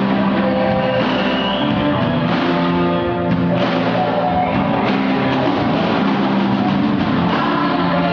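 Live band music with singing, played at a steady, loud level.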